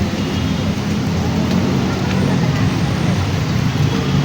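Street traffic: vehicle engines running with a steady low rumble under an even hiss.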